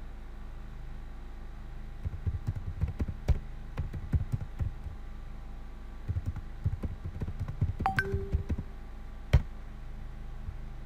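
Typing on a computer keyboard: two runs of quick keystrokes, then one louder single key press near the end.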